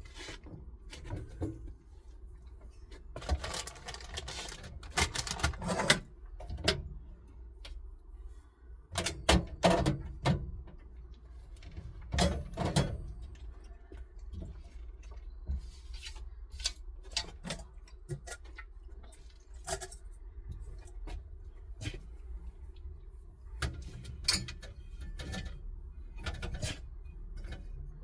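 Irregular clicks, knocks and light clattering of small objects being handled while cleaning and tidying inside a campervan, over a low steady hum. The louder knocks cluster around a few seconds in, around ten seconds in and about twelve seconds in.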